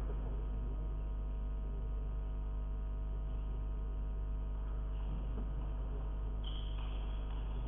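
Steady low electrical mains hum, with a faint high tone near the end.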